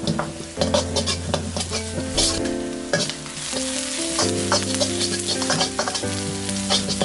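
Lemongrass, shallots and spring onion sizzling in hot oil in a wok, stirred with a metal ladle that scrapes and clicks against the pan over and over.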